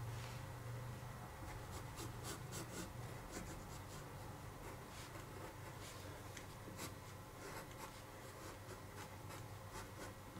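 Wooden graphite pencil scratching faintly across drawing paper in short, irregular sketching strokes.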